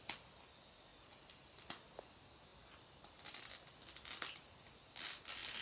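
Wrapping on an L.O.L. Surprise ball crinkling and tearing as it is peeled open by hand: a few faint clicks, then short spells of rustling from about three seconds in, loudest near the end.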